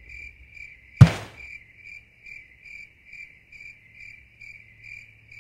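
Cricket chirping at an even pace, a little over two short chirps a second, over a faint low hum. About a second in, a single sharp, loud thump that rings away quickly.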